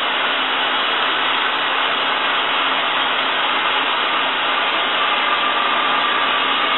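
Handheld heat gun running steadily, an even blowing hiss, as it warms vinyl wrap film to soften it for stretching.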